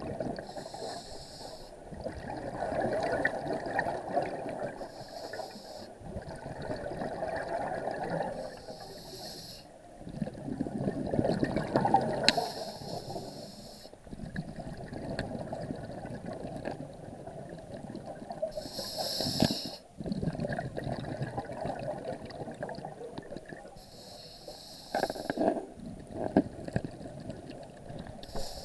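Scuba diver breathing through a regulator underwater: a short hissing inhale followed by a longer rush of exhaled bubbles, repeating every four to six seconds.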